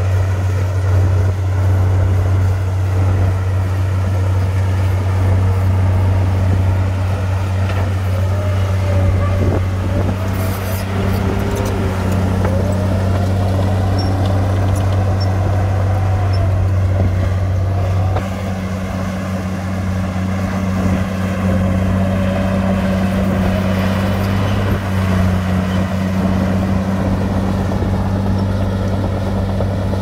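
Diesel engine of heavy earthmoving machinery running steadily with a deep drone; about eighteen seconds in, the engine note shifts. In the middle a whine rises and falls several times over the engine.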